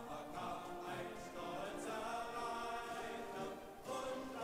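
Background choral music: a choir of voices singing long held notes.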